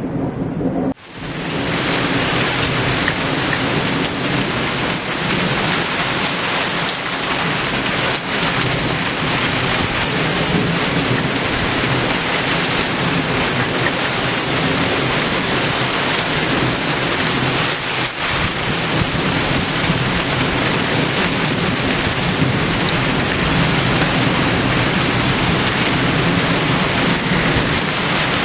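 Heavy rain pouring steadily, a dense, even hiss. It drops out briefly about a second in.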